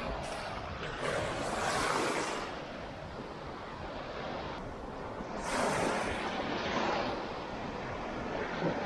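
Small waves breaking and washing up a sandy beach, the wash swelling louder twice, about two seconds in and again around six seconds.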